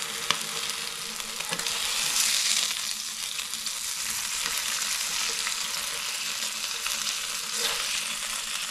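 Egg and bacon sizzling in a nonstick frying pan, a steady frying hiss. There are a couple of sharp clicks of the spatula against the pan in the first two seconds.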